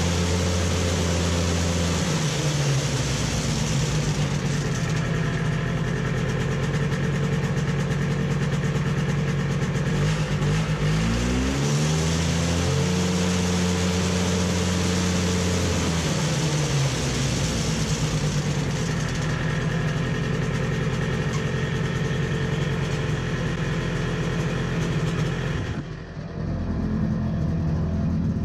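Yamaha Bravo snowmobile's single-cylinder two-stroke engine running and warming up on its first start of the season, its revs swinging up and down a few times.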